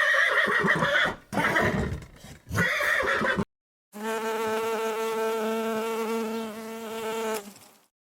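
A horse neighing, a high whinny broken into three bursts. After a short pause comes a steady, even-pitched buzzing call lasting about four seconds.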